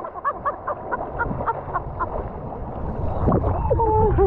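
Muffled, low rumbling water and wave noise, as heard by a camera in or splashed by the water. There is a quick run of faint short squeaks early on and a few sliding tones near the end.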